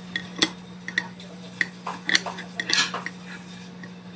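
Stainless kitchen scissors snipping through a grilled eel held with metal tongs, giving a series of sharp, irregular metal clicks and taps against the ceramic platter.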